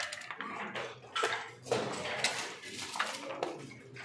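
Backgammon checkers and dice clacking on the board during fast play: several sharp clicks.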